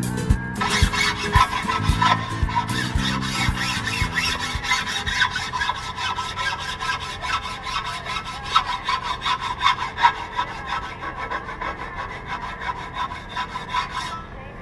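A steel blade being sharpened by hand: fast, even strokes of metal scraping against metal, several a second, which stop suddenly near the end.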